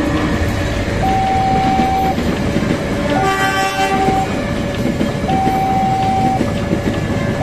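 Diesel-hauled passenger train rolling through a level crossing, its wheels rumbling steadily over the rails. Over it sounds the crossing's two-tone warning alarm, a higher and a lower tone swapping about once a second, and a one-second blast of the train horn about three seconds in.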